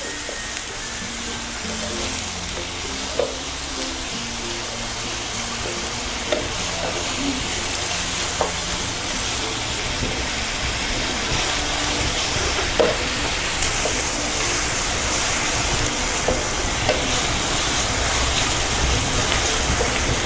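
Grated onions sizzling in hot oil in a non-stick frying pan, stirred with a wooden spatula that gives scattered light taps against the pan.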